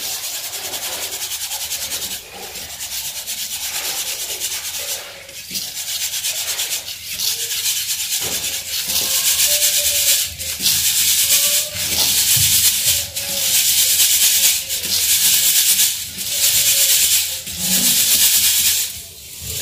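Ground rice-and-wheat flour being rubbed by hand through a round metal mesh sieve: a scratchy rasping hiss in repeated strokes of a second or two, with short breaks between them.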